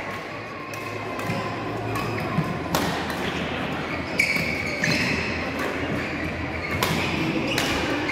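Badminton play in a sports hall: a handful of sharp racket hits on the shuttlecock and short squeaks of court shoes on the floor, over the steady murmur of the hall.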